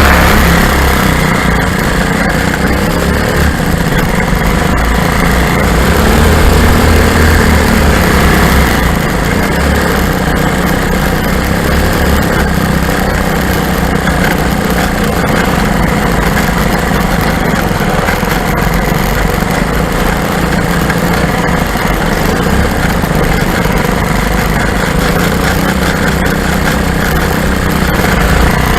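The twin engines of a Lazair ultralight aircraft running steadily, with a small rise and fall in level.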